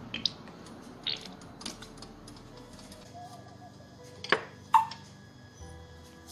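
Soft background music over light clicks of kitchen handling, with two sharp metallic clinks a little past halfway, the second briefly ringing, as a small steel cup is picked up from the table.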